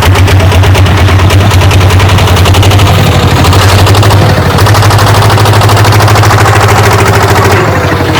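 Diesel engine of a Kubota DC-70G combine harvester running loud, a rapid, even clatter, with a short dip in level about halfway through.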